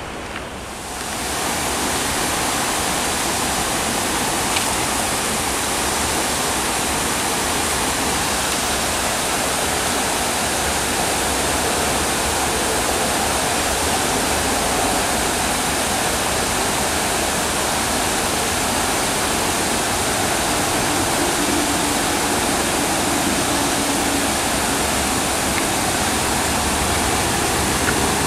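Steady rushing of water running through a small drainage ditch, coming in about a second in and holding even throughout.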